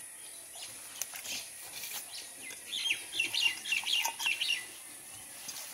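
Small bird chirping: a quick run of high, twittering chirps in the second half, with a few faint clicks about one and two seconds in.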